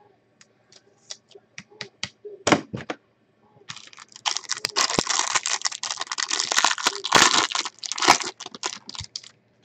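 A trading-card box's plastic wrapping being torn open and crinkled: scattered clicks and handling noises at first, then a few seconds of continuous tearing and crinkling, ending in more small clicks.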